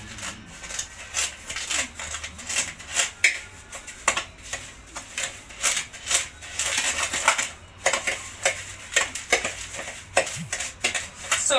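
A spoon scraping and clicking against a plastic mixing bowl in quick, irregular strokes while margarine and sugar are creamed together by hand, the sugar grating in the mixture.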